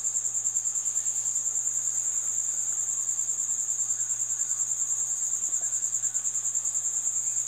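A cricket trilling without a break, a high-pitched fast even pulsing.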